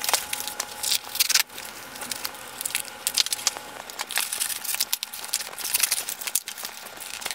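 Corrugated cardboard carton being ripped open by hand at its end: an irregular run of crackling rips and crinkles, a little louder at the start and about a second in.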